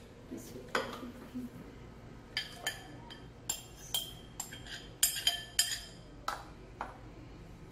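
Light, irregular clinks and knocks of bowls and kitchen utensils, about a dozen of them, while minced mutton is put into the bowl of a Kenwood food processor.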